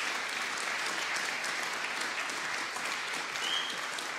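Crowd applauding, a steady dense clapping, with a brief high whistle about three and a half seconds in.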